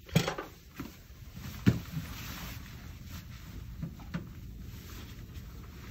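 Two sharp knocks about a second and a half apart, then a few lighter taps and a short rubbing: gloved hands handling and wiping the plastic base of a dental chair.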